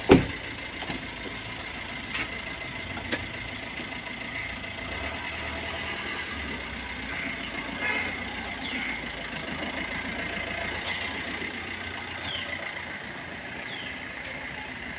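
Maruti Suzuki Ertiga's diesel engine idling steadily as the car creeps along at low speed. A single sharp thump comes right at the start.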